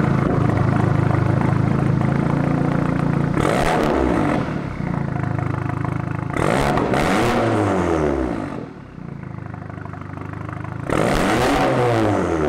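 Audi A3 2.0T turbocharged four-cylinder through an APR downpipe and Borla cat-back exhaust, revved in place. It holds at raised revs for about three seconds, then gives three blips that rise and fall, settling back to idle between them. The exhaust note has the raspy 'beehive' tone that is typical of this Borla setup.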